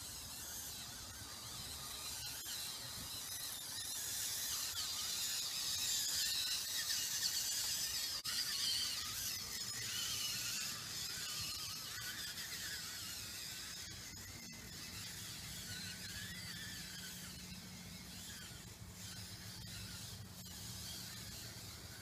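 Small electric drive motors of a radio-controlled skid steer model whining as it drives over dirt, the pitch wavering up and down with the load. The whine is loudest in the first half and gets fainter as the machine moves away.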